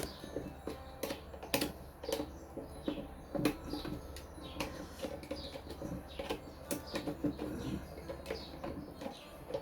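Irregular sharp clicks and taps of small hard parts being handled during disassembly. Short, high, falling chirps of small birds repeat in the background.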